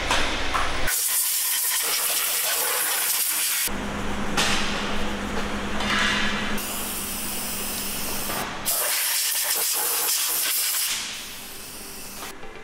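Pressurised spray nozzle hissing in several long bursts of two to three seconds each, getting quieter near the end.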